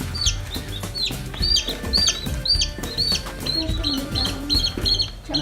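Young chicks peeping: a run of short, high, falling chirps, about two a second, coming faster near the end, over background music with a drum beat.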